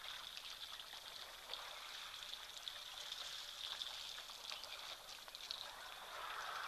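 Faint outdoor bush ambience: a steady hiss with a high, even tone on top and scattered short ticks and chirps.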